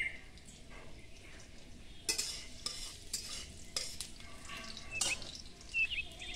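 Garlic sizzling as it goes into hot mustard oil in an aluminium kadai, the sizzle starting suddenly about two seconds in, while a metal spatula stirs and scrapes against the pan several times.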